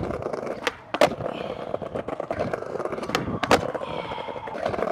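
Skateboard wheels rolling over brick pavers, rattling over the joints, broken by several sharp wooden clacks of the board being popped and landing, the loudest about a second in and two more a little after three seconds.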